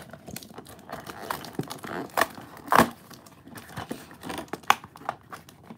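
Hands opening a cardboard toy box: the card scrapes and crinkles with irregular taps and clicks, the loudest about halfway through.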